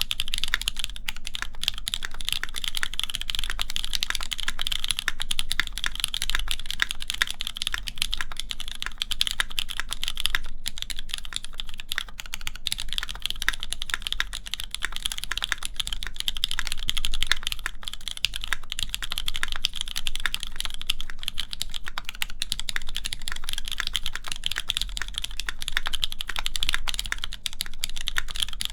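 Continuous fast typing on a Keycult No. 2 mechanical keyboard with an aluminum plate, lubed Cherry MX Black linear switches and GMK keycaps: a steady stream of key clacks with no pauses.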